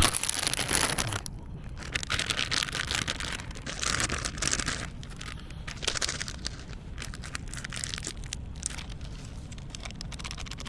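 Plastic packaging crinkling and tearing in uneven rustling bursts, loudest about four seconds in.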